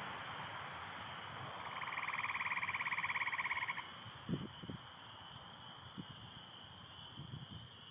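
Chorus of spring peepers, a steady high peeping band, with an American toad's pulsed trill from about 2 s in to nearly 4 s. A few soft low thumps come in the second half.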